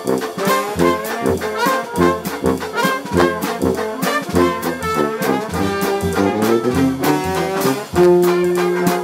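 Dixieland jazz band playing live: trombone and tuba over a steady beat, with banjo. A long held brass note comes near the end.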